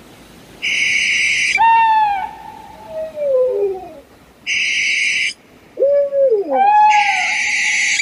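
Owl calls: three harsh screeches, each about a second long and starting and stopping abruptly, with falling whistled notes in between.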